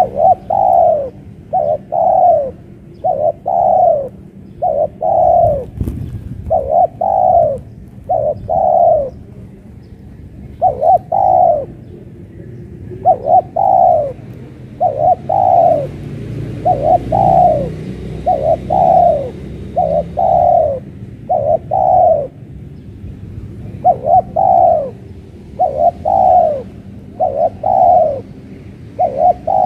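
Spotted dove (tekukur) cooing steadily: a long run of loud coos in twos and threes, each note falling slightly in pitch, with short pauses between phrases.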